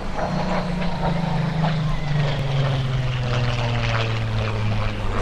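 Supermarine Spitfire flying past in a display, its piston engine and propeller droning, the note dropping in pitch over the first couple of seconds as it passes, then holding steady.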